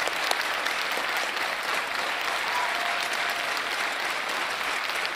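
Large audience applauding: dense, continuous clapping that holds steady throughout.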